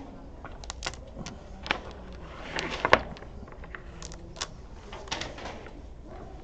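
Dominoes clicking against one another and tapping on a wooden table as they are gathered up by hand: scattered irregular clicks, the loudest about three seconds in.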